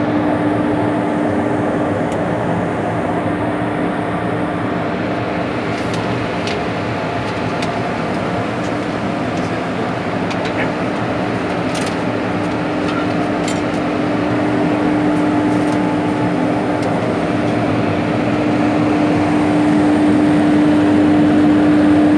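Indian Railways electric locomotive running, heard from inside its cab: a steady machinery noise with one strong steady hum, growing louder over the last few seconds, and a few faint clicks.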